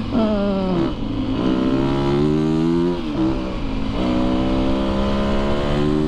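Single-cylinder four-stroke dual-sport motorcycle engine pulling under throttle. Its pitch falls in the first second, climbs, dips briefly about three seconds in as it shifts up, then climbs again.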